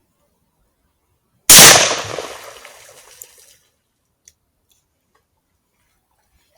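A single gunshot, sharp and very loud, its echo dying away over about two seconds.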